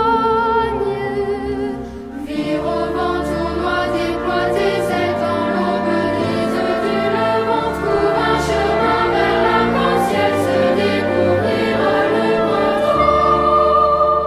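Background music: a choir singing sustained, flowing lines, with a brief lull about two seconds in before a new phrase.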